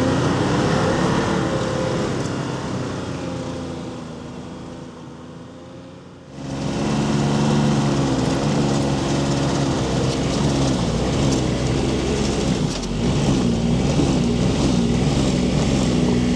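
Snowmobile engine running while towing a loaded komatik sled. It fades over the first six seconds, is suddenly loud again from about six seconds in, and its pitch then rises and falls repeatedly with the throttle.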